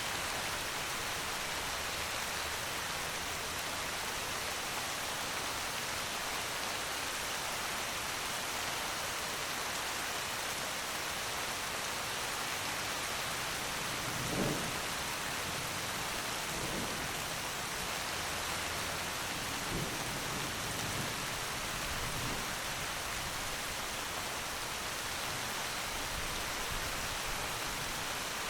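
Steady rain falling, an even hiss of drops. A short low thump sounds about halfway through, followed by a few fainter ones.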